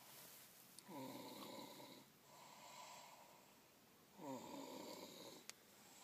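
A sleeper snoring: two snores about three seconds apart, each lasting about a second, with a couple of faint ticks between them.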